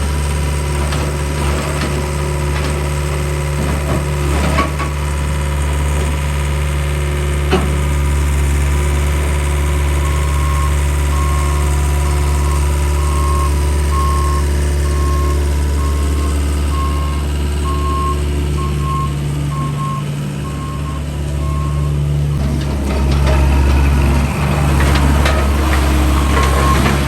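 John Deere skid steer's diesel engine running steadily, getting louder near the end as it works harder. From about ten seconds in, its reversing alarm beeps at an even pace.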